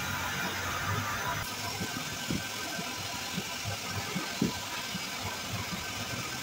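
Steady engine-like machine noise, with a few soft knocks about two and four seconds in.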